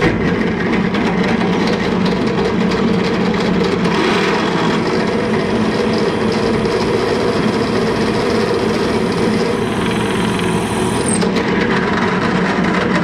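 Pillar drill running steadily, its bit drilling into the rim of a metal handwheel: an even motor hum with cutting noise over it.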